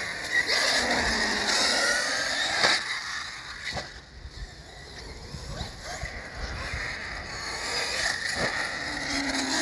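Arrma FireTeam RC truck with a Spektrum Firma 1250 kV brushless motor on 8S, its motor whine rising and falling as it is driven over concrete skatepark ramps. Its tyres hiss on the concrete, and a few sharp knocks are heard, about three seconds in, four seconds in and again near the end.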